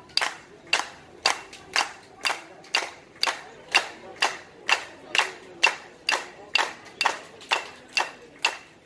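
A knife tapping on a sealed clay testi kebab pot, about two sharp clinks a second in a steady rhythm, each with a brief high ring.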